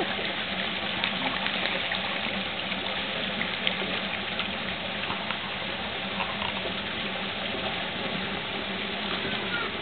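Steady rush of running, splashing water, with a few faint short clicks over it.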